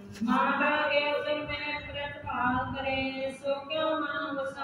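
A voice chanting Gurbani in long held notes that slide from one pitch to the next.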